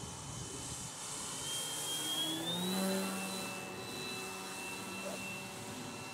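Electric motor and propeller of a radio-controlled model biplane in flight, a steady whine. About two seconds in the whine climbs in pitch and grows louder, then holds steady at the higher pitch.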